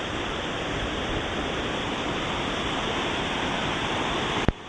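Waterfall rushing, a steady, even noise. Near the end a sharp click cuts in and the rushing carries on quieter.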